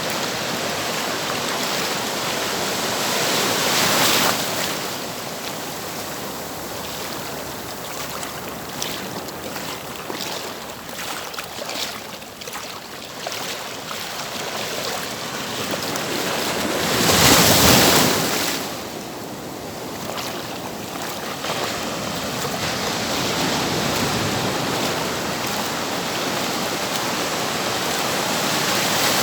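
Ocean surf: waves washing in steadily, with one wave breaking about four seconds in and a louder one breaking about seventeen seconds in.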